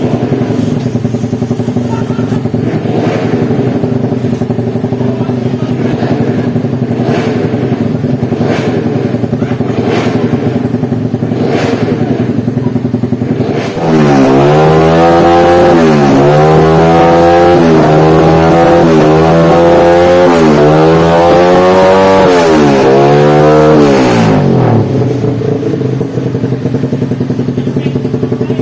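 Race-tuned Yamaha MX King 150's single-cylinder four-stroke engine idling with a few short throttle blips. About halfway through it is revved hard, rising and falling about seven times in quick succession for some ten seconds, then drops back to idle.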